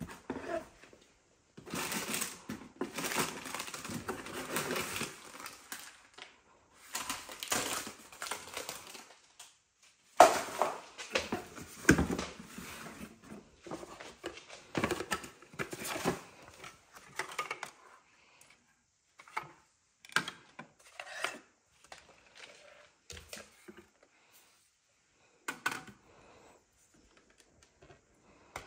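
Cardboard packaging rustling and scraping as it is handled, with sharp knocks of hard plastic vacuum parts set down on a hard countertop. Busiest in the first half, then only scattered clicks and taps.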